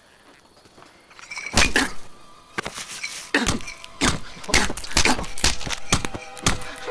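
A glass bottle struck again and again into a man's face, as a film sound effect: a rapid series of heavy thuds beginning about a second and a half in.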